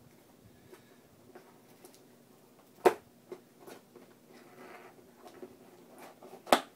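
A shipping package being handled and opened: quiet rustling and scraping, broken by two sharp clacks about three and a half seconds apart.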